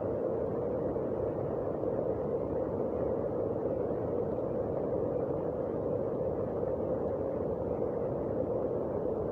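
Heavy rain falling, a steady, even rushing noise with no separate drops, knocks or thunder.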